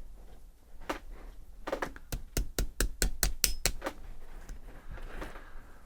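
Sharp taps and clicks from small parts being fitted on a rifle bolt: a couple of single clicks, then a quick run of about eight clicks in under two seconds.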